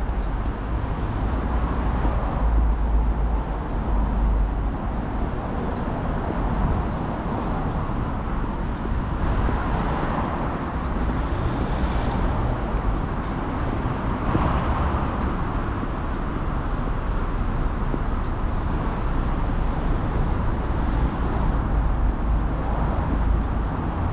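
Steady city traffic noise with a deep rumble, and a few vehicles passing a little louder about ten, twelve and fifteen seconds in.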